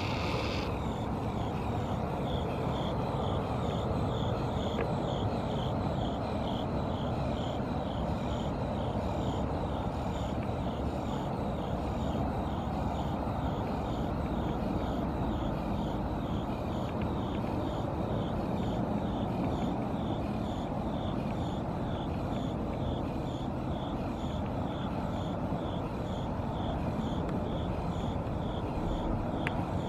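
Steady outdoor rumble, like distant traffic or wind, with a faint high chirp repeating about twice a second.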